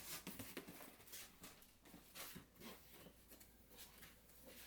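Faint rustling and light clicks of foam packing being handled and lifted out of a cardboard box.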